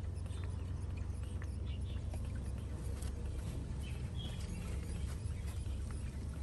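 Baby monkey sucking milk from a bottle: faint, irregular small wet clicks of suckling over a steady low rumble.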